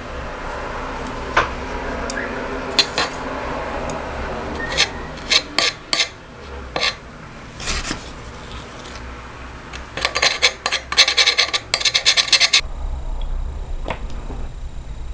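Steel tweezers clicking and scraping over cardboard in a stainless steel dish, picking at burnt caesium residue. Scattered sharp clicks come first, then a fast rough scraping for about two seconds that stops suddenly.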